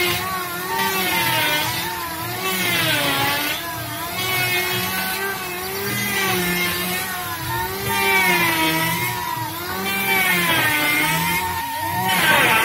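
Electric hand planer running as it shaves a long suren-wood board, its motor pitch rising and dipping every second or two as it bites and eases off.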